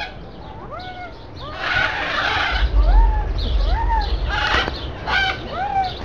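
Macaws calling in an aviary: a steady run of short squawks that rise and fall in pitch, about two a second, with harsher, noisier screeches mixed in about two seconds in and again near the end. A low rumble on the microphone runs under the middle stretch.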